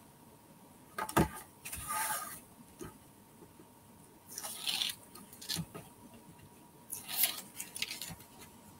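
Paper handling: sheets of cardstock and patterned paper sliding and rustling on the desk in a few short scrapes, with a click about a second in. Near the end, the paper backing is peeled off a strip of double-sided adhesive tape.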